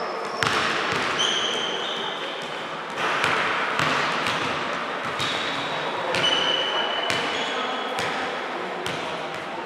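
Basketball game on an indoor court: a ball bouncing several times, with short high squeaks of sneakers on the floor, over a background of voices in a large echoing hall.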